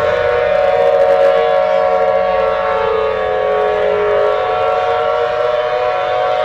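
Air raid siren wailing loudly at a held pitch, several tones sounding together, with one tone sagging slightly about three to four seconds in and coming back up.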